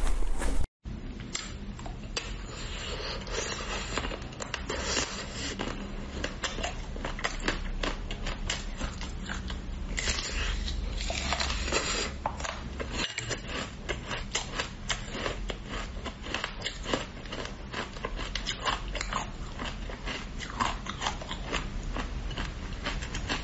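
Close-miked biting and chewing of frozen chocolate-coated treats. A loud bite of a frozen chocolate cube in the first second is cut off by a short break. After that come many small crackles and snaps as the chocolate shell of an ice cream bar is bitten and chewed.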